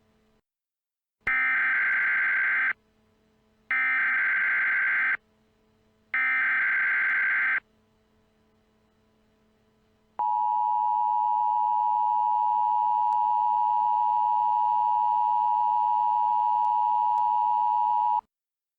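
Emergency Alert System tones: three SAME header data bursts, each about a second and a half long, then after a short gap the steady two-tone EAS attention signal, held for about eight seconds.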